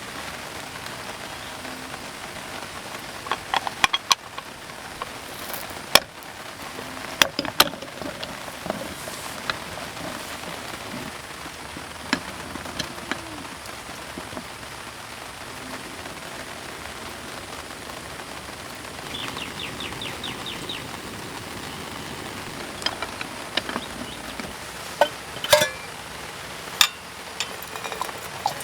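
Steady rain falling, with scattered sharp clicks and knocks of camp gear being handled, a quick run of small ticks about two-thirds of the way through, and a few louder knocks near the end.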